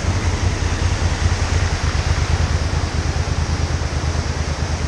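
Swift floodwater rushing steadily over a concrete low-water crossing, with a motorcycle engine idling low underneath.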